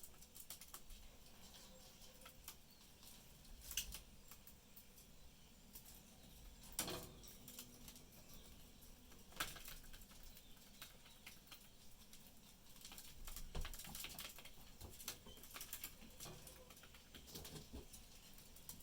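Budgies pecking at their food: faint, irregular clicks and taps, a few of them louder.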